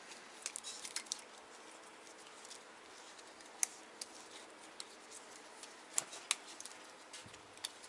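Faint, scattered light clicks and taps of plastic parts and wiring being handled as a plastic wiring-harness rail is taken apart, with a few sharper clicks in the middle and near the end.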